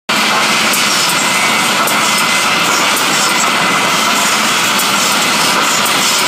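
Industrial woodworking machine running steadily, with an even, loud noise of motor and cutters.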